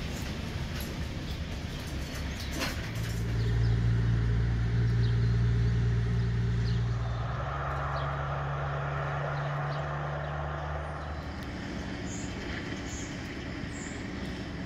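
Engine running with a steady low hum, which gets louder about three seconds in and shifts in pitch about seven seconds in.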